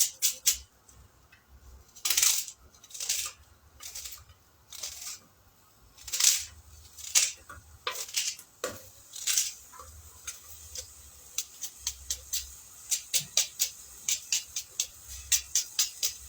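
Knife chopping an onion finely on a cutting board: irregular sharp taps with a few scraping strokes, then a quicker steady run of chops, about four a second, over the last few seconds.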